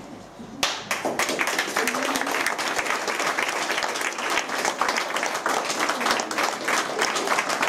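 Audience applauding: many hands clapping, starting suddenly about half a second in and going on steadily.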